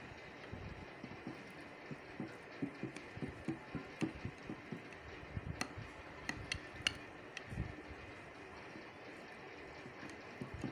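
Kitchen knife cutting through a slab of set besan barfi in a glass baking dish: soft irregular scraping and knocking as the blade presses down, with a cluster of sharp clicks about halfway through as it taps the glass.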